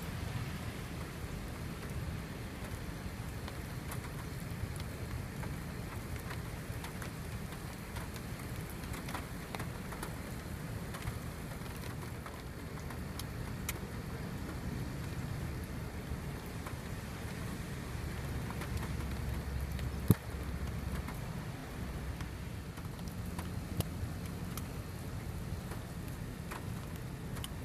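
Rain pattering and ticking on a car, heard from inside, over a steady low rumble. A single sharp knock about twenty seconds in is the loudest moment.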